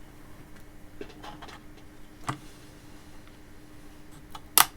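Light scattered clicks and taps from handling the plastic parts of an opened wire-feed soldering iron, over a faint steady hum. Near the end come a few sharp, loud clicks.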